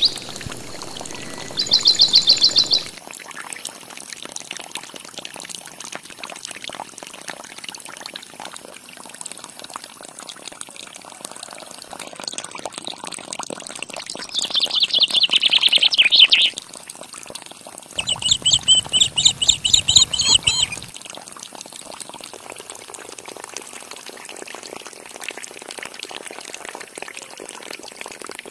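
A thin stream of water pours and splashes steadily from a miniature water pump and a small cup. Loud bursts of rapid bird chirping come about two seconds in, around the middle, and again a few seconds later.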